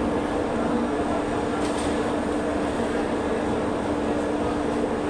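Passenger train coaches rolling past along a platform as the train departs: a steady rumble of the running gear with a constant hum.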